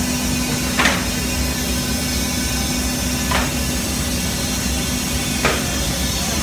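Industrial profile sanding machine running, its rotating heads of abrasive sanding strips brushing over panel surfaces: a steady mechanical noise with a low hum underneath. Three short knocks come a couple of seconds apart.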